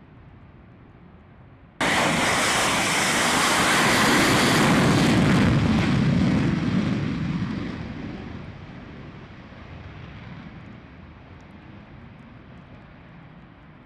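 Fighter jet taking off at full power: its engine noise cuts in suddenly about two seconds in, stays loud for about five seconds, then fades to a low rumble as the jet climbs away.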